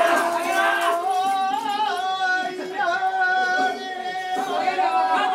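Kiyari ceremonial work song: a voice singing long, wavering held notes, with a brief break about four seconds in before the song resumes with sliding pitch. In this procession the kiyari singers lead the bearers as they greet parishioners' houses with the shrine lifted overhead.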